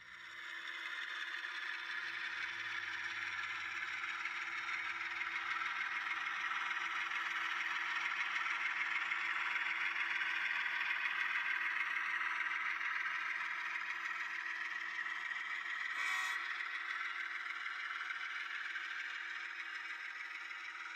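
HO scale model train, a diesel locomotive pulling coil steel gondolas, rolling along the track with a steady rattle of metal wheels on the rails. It grows louder toward the middle as the train passes and eases off near the end, with one sharp click about three quarters through.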